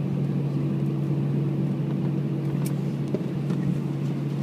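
Steady cabin noise inside an Airbus A319-114 taxiing after landing: an even drone from the idling engines with a constant low hum.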